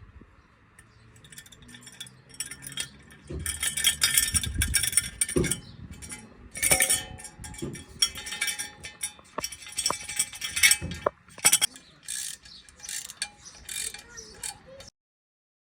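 Metal chimes tinkling and ringing in irregular clusters, swelling in surges every second or two, then cutting off abruptly near the end.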